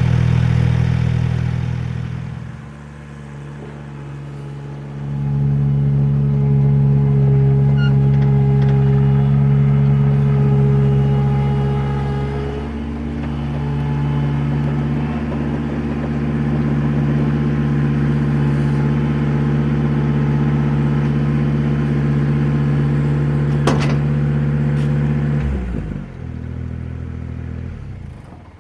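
Ventrac compact tractor engine running steadily, its speed dipping a few seconds in and coming back up. It drops to a lower idle about 25 seconds in, and is shut off near the end.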